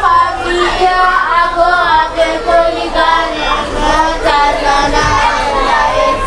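A class of students reading a written maths question aloud together in a sing-song chorus of many voices.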